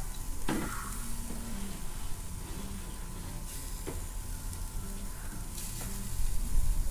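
Bacon-wrapped jalapeno poppers sizzling as they are set onto a hot charcoal grill grate, with a few light knocks as pieces go down.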